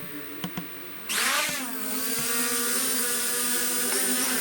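ZD012 GPS quadcopter's motors and propellers spinning up for takeoff: a couple of light clicks, then a sudden surge about a second in that dips briefly and settles into a steady whine.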